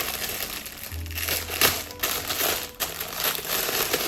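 Plastic packaging crinkling and rustling as it is handled, in irregular crackles.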